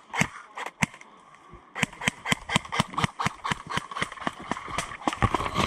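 Airsoft guns firing rapid single shots: a few cracks at first, a brief pause, then a quick run of about five shots a second.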